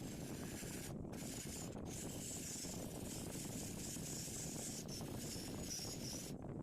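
A spinning wire wheel scrubbing rust off an old steel pipe wrench: a steady scratchy hiss over a low run of the motor. The high scratching breaks off briefly about a second in and again near the end.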